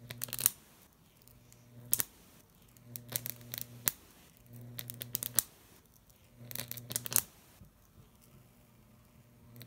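Homemade Jacob's ladder arcing between two copper wires: each arc buzzes and crackles as it climbs, then breaks off with a sharp snap. The cycle repeats about every second and a half, five times.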